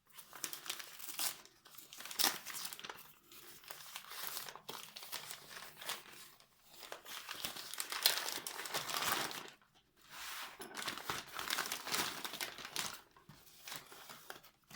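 Packaging crinkling and rustling as it is handled and opened, in uneven bursts with a few short pauses.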